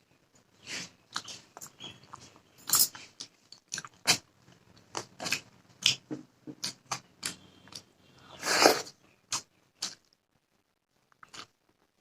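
Close-miked eating of rice and fish curry: wet chewing with many short mouth smacks and clicks, and one longer, louder burst about eight and a half seconds in.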